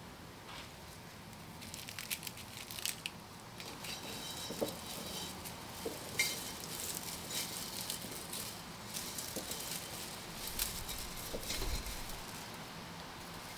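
Dried flower and grass stems rustling and crackling as they are handled and pushed into a ceramic vase, with scattered light clicks and small taps.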